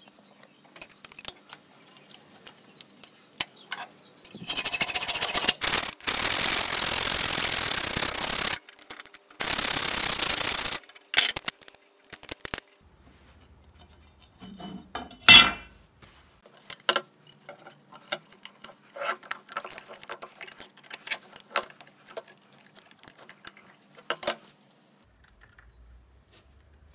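Metalwork on a rusty steel meat cleaver. Two loud stretches of steady, harsh noise of a few seconds each come early on, then scattered metal clinks, taps and knocks, with one sharp ringing strike in the middle.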